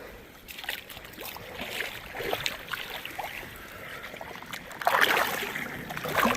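Water splashing and sloshing with scattered small clicks, the loudest splash about five seconds in.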